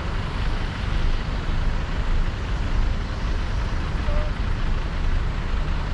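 Steady road noise of a car driving in city traffic: a continuous low rumble of tyres and engine with a wash of traffic around it.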